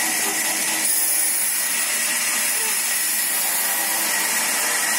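Large sawmill band saw running: a steady, loud hiss with a thin, constant high whine.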